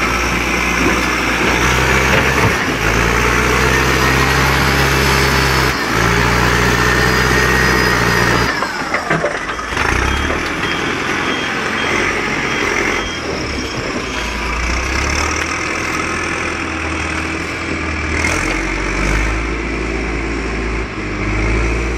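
Volvo backhoe loader's diesel engine running, its speed and load stepping up and down as the machine works, with a faint repeated high beep for a few seconds near the middle.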